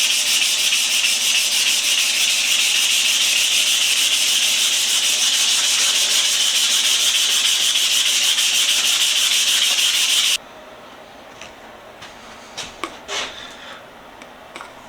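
Fine 500-grit sandpaper sanding the steel of an adjustable wrench, a steady, even rasp that stops abruptly about ten seconds in. A few light clicks follow.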